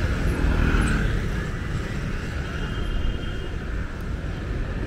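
Street ambience of city traffic: a steady rumble of vehicles, a little louder in the first second.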